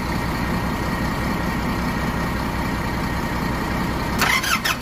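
Yanmar diesel engine in a Doosan forklift idling steadily on its first run after being installed and having its fuel bled. A short burst of higher-pitched sound comes near the end.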